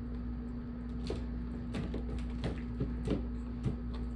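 Steamed blue crab shells being cracked and picked apart by hand: a series of short, irregular cracks and clicks over a steady low hum.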